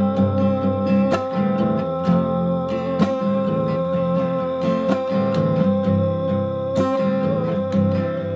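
Acoustic guitar strummed in chords about once a second under one long sung note from a man, held steady in pitch; the note stops near the end.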